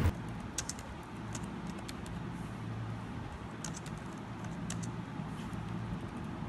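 Computer keyboard typing: scattered key clicks, some in quick runs and some single, over a steady low background hum.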